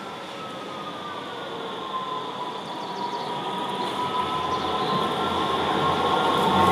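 A Dortmund Stadtbahn light-rail tram approaching on street track, its running noise growing steadily louder. There is a steady high whine over a building low rumble.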